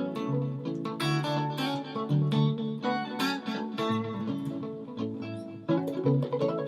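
Guitar playing a reggae groove: short strummed chord strokes over lower sustained notes, layered live with a loop pedal, with no singing.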